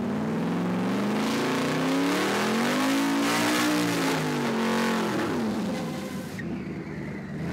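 Turbocharged drag-racing truck engine at full throttle on a pass down the strip. The engine note climbs for about three seconds, then drops away as the truck goes by.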